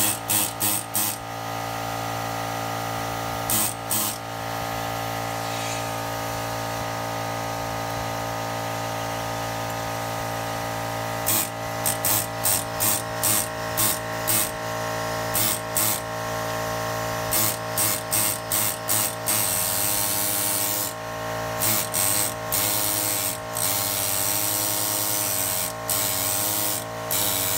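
Pneumatic gasket scraper triggered in many short bursts of hissing air, knocking old gasket material off the Ford 302 V8 block's water pump mounting face. The bursts come in quick runs, sparse at first and dense from about 11 seconds in, over a steady hum.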